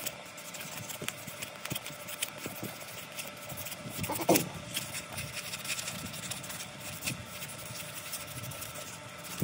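600-grit sandpaper rubbed by hand in circles around a metal brake caliper piston, a steady scratchy rubbing as it cleans rust off the piston. A brief falling squeak about four seconds in.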